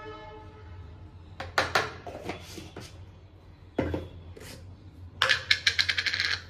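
Steel kitchenware being handled at a stove as a pressure cooker is filled: a few sharp clinks and knocks, one heavier clunk about four seconds in, then a quick run of rattling clicks near the end.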